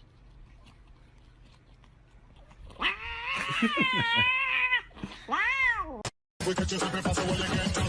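A cat meowing twice: a long, drawn-out, wavering meow about three seconds in, then a shorter meow. Music starts abruptly near the end.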